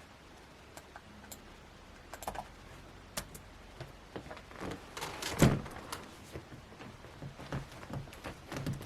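Faint scattered clicks and taps with one louder thump about five and a half seconds in.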